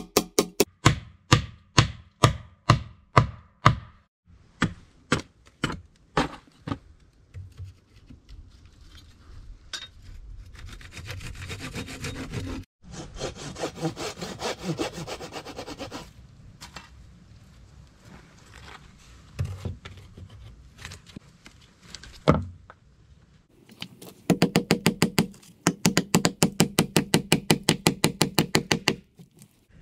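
Small hammer striking nails into wooden boards with sharp ringing blows, about two a second at first, then thinning out. A stretch of hand sawing on wood follows. Near the end comes a fast run of hammer blows, about four a second, nailing split wood slabs in place.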